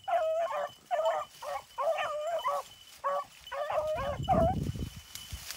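Beagles baying on a rabbit's trail: a run of short, high, yelping bays in quick succession as the hounds work the scent. About four seconds in, a low rush of noise rises briefly under the last cries.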